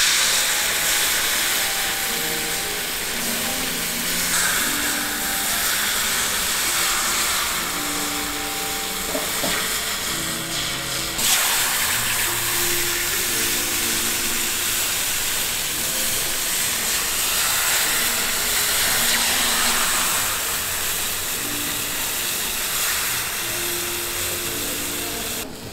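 Takoyaki batter sizzling loudly as it is poured into a hot cast-iron giant takoyaki pan, a dense steady hiss. Faint background music plays underneath.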